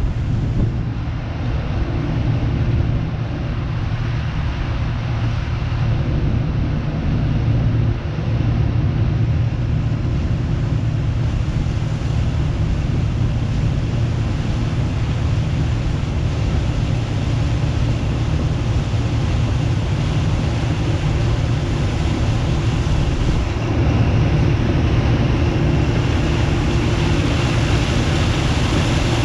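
Gleaner combine running steadily while harvesting corn: a constant, loud low engine drone with the machinery's noise over it.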